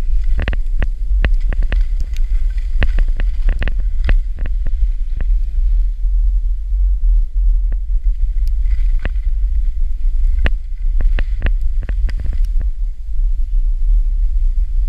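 Wind buffeting the microphone of a skier's point-of-view camera while skiing downhill, a steady low rumble, with irregular sharp clicks and short hisses from the skis on the snow.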